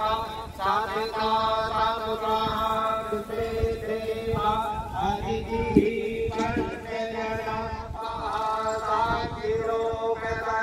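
A man's voice chanting mantras for a group ritual, in phrases of long held notes with gliding ones in between.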